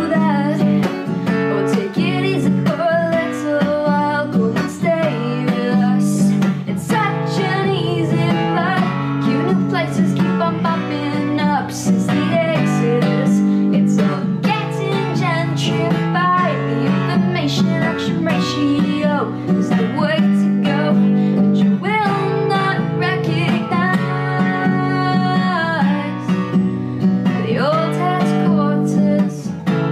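Steel-string acoustic guitar with a capo, strummed through a chord progression without pause, with a voice singing along over it.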